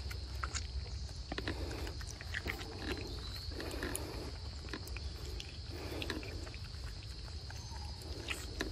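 Young macaques eating ripe mango from a person's hand: repeated wet chewing and mouth smacking, with scattered sharp clicks.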